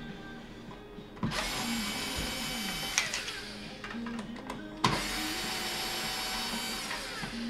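Cordless drill-driver with a Torx bit backing out door mounting screws: two runs of steady motor whine, the first from about a second in to about three seconds, the second from about five seconds to near the end, each starting with a click.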